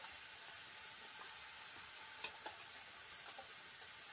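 Rice and pequi frying in a pot over a wood fire: a steady sizzle, with a few light clicks from stirring about halfway through.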